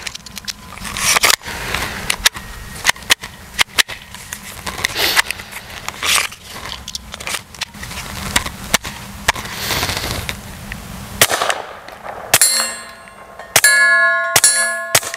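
Clicks and rattles of a Taurus TX22 .22 pistol being handled. Then, from about twelve seconds in, a quick string of suppressed .22 shots, each followed by the ringing of steel targets being hit.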